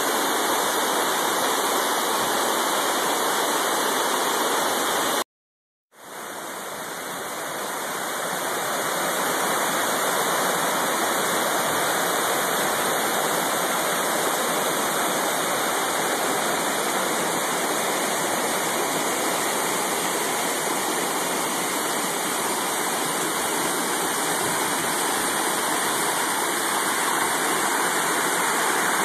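Waterfall rushing with a steady, even roar of falling water. It cuts out completely for about half a second some five seconds in, then comes back and swells to full strength over the next few seconds.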